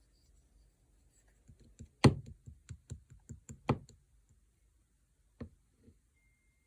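Clear slime being pressed and poked by hand, giving a run of sharp clicks and pops at about four a second, two of them louder than the rest. Two more single pops follow near the end.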